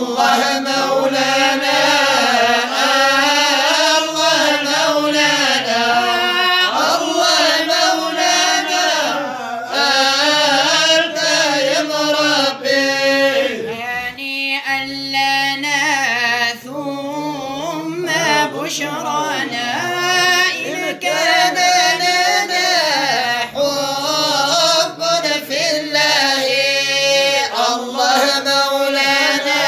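Male voice chanting Arabic madih nabawi (devotional praise poetry for the Prophet Muhammad), a winding, ornamented melody with vibrato on held notes and only short breaks for breath.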